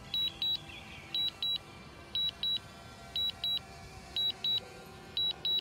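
DJI Mavic Air remote controller beeping: high double beeps, about one pair a second. This is the controller's alert while the drone is on return-to-home.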